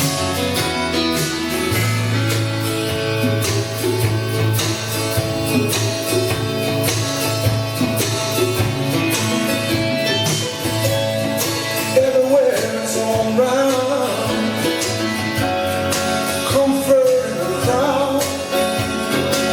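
Country song played back from a reel-to-reel tape deck: a guitar-led band, with singing coming in about twelve seconds in.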